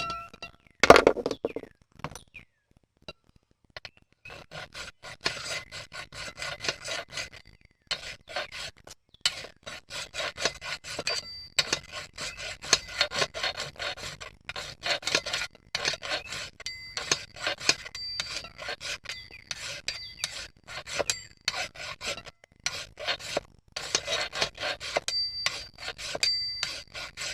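Flat file being drawn lightly over the bar mounting pad of a McCulloch Mac 3516 chainsaw in many short, rapid strokes, after a single knock about a second in. The pad is being dressed flat so the bar oil passage seals against the bar, because the saw was leaking oil there.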